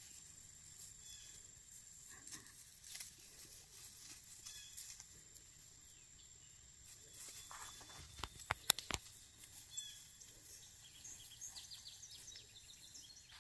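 Quiet outdoor ambience with a faint steady high whine, soft rustling as puppies move through tall grass, a few sharp clicks about nine seconds in, and a quick run of high chirps from a bird near the end.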